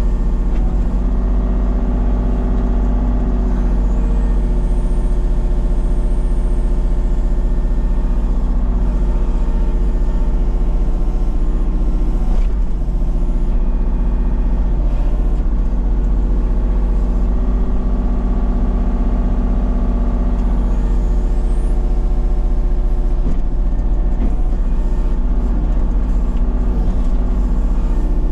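Kubota KX033-4 mini excavator's three-cylinder diesel running steadily under working load as the boom and bucket clear brush, heard from inside the cab. The engine note swells briefly a few seconds in and again about two-thirds of the way through.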